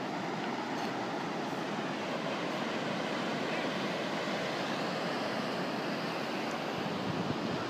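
Ocean surf breaking along an open beach: a steady, even rushing roar with no separate wave crashes standing out.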